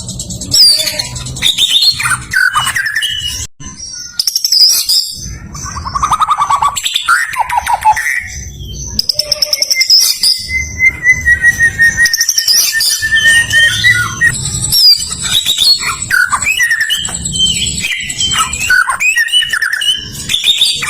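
White-rumped shama singing: a varied run of loud whistles, chirps and quick trills, with one long drawn-out whistle about halfway through.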